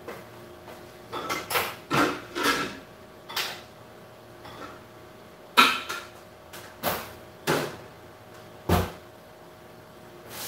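Irregular knocks and clatters of things being handled in a kitchen, about nine in all, the loudest about halfway through, over a faint steady hum.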